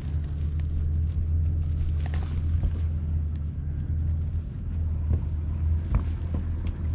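Twin Mercury Verado 300 V8 outboards idling with a steady low hum, with a few faint clicks and rustles as a cast net is gathered and loaded for a throw.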